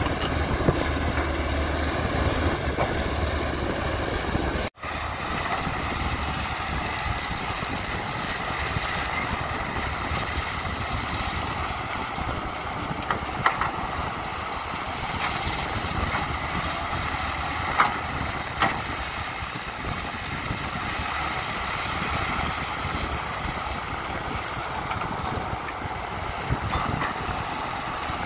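Caterpillar tracked excavator's diesel engine running steadily under working load as it swings and dumps soil into a dump truck, with a few sharp knocks. The sound cuts out for a moment about five seconds in.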